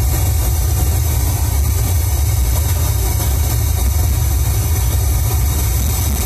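Large sound-system speaker stack blasting a steady, very bass-heavy test sound during a sound check, loud and unbroken.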